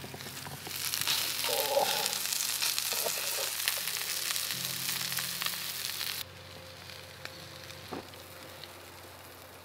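Breadcrumbed crayfish pieces sizzling and crackling in hot oil in a frying pan, with tongs turning them in the pan. The frying cuts off suddenly about six seconds in.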